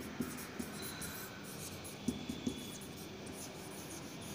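Marker pen writing on a whiteboard: faint scratchy strokes, with two light taps about two seconds in.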